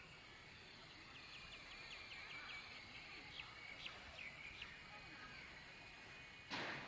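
Faint, steady high whine of a small electric RC helicopter (Esky Hunter) hovering, with a run of short chirps over it in the middle, and a brief loud rush of noise near the end.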